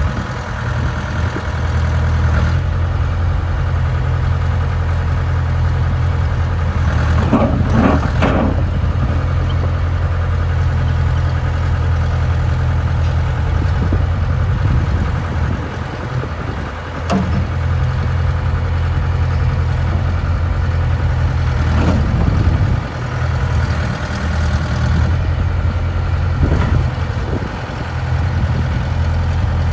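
John Deere 310D backhoe's 70 hp John Deere diesel engine running steadily, its sound shifting briefly several times, about 8, 17, 22 and 27 seconds in.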